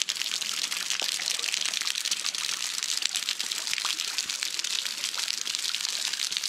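Water falling in a spray of drops and splashing onto wet flowstone: a steady hiss dense with small splashes.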